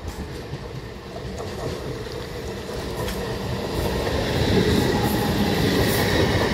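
Suburban electric multiple-unit local train rolling past close by, its wheel-and-rail rumble growing steadily louder over the first four seconds and then holding as the coaches go by, with a few sharp clicks from the wheels over the track.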